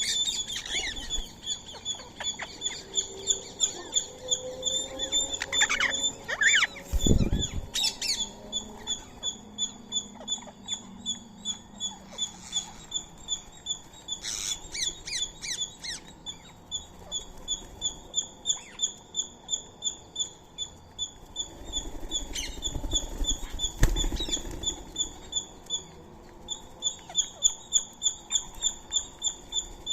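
Birds calling at a feeding spot: a steady run of high, evenly repeated chirps, about three a second, with other chirps and squawks over it and a couple of low thumps.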